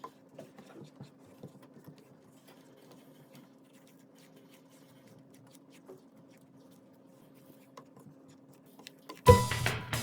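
Faint scattered clicks and light taps of kitchen handling over a low steady hum. Background music with a beat starts abruptly near the end and is by far the loudest sound.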